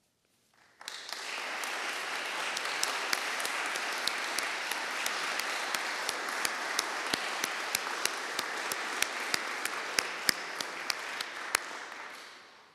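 Audience applauding: the clapping starts about a second in, swells quickly, holds steady with single sharp claps standing out, and dies away near the end.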